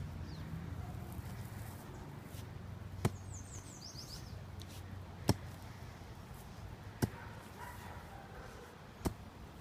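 Mattock blade chopping into grass turf and soil, four sharp strikes about two seconds apart.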